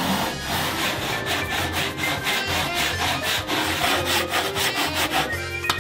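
Hand saw cutting a groove into a pine disc, a steady run of quick back-and-forth strokes through the wood.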